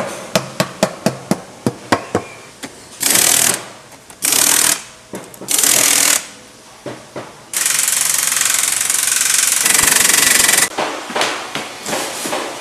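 Factory machinery on a wooden cable drum production line: a quick run of sharp knocks, about four a second, then several bursts of hissing, the longest about three seconds, followed by more irregular knocks.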